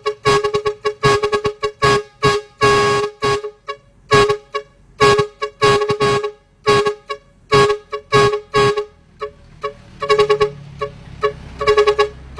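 A long 4-foot air horn sounding one steady note in quick, rhythmic short blasts, with one longer held blast about three seconds in and a brief pause near the end.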